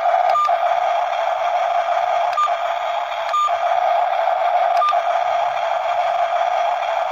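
Small electric gear motors of remote-control toy construction vehicles whining steadily, with four short clicks.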